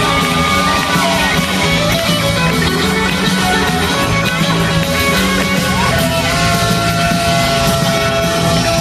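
Live rock band playing an instrumental passage. Electric guitars with bent, gliding notes and one long held note near the end sound over a steady bass and drums.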